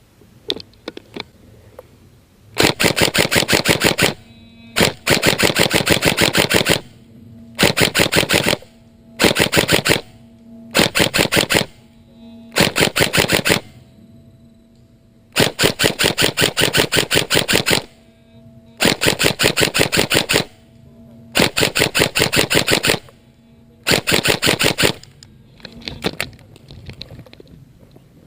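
Electric airsoft gun (AEG) firing on full auto in about ten short bursts of one to two seconds each, with the gearbox motor's whine under the rapid clatter of each burst.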